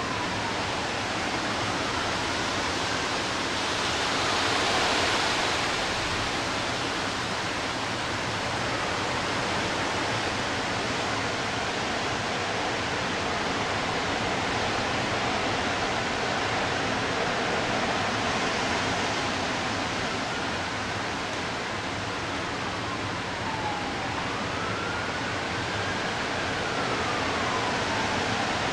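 Steady rush of thunderstorm wind and rain, swelling in a gust about five seconds in. Under it, faint, an outdoor warning siren wails, rising and falling slowly: the alarm sounded for straight-line winds over 70 mph.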